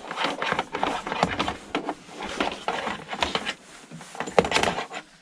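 Irregular clicks, knocks and rustles of hands working on an old computer monitor and its power cord as the cord is cut away, with one sharp loud knock about four seconds in.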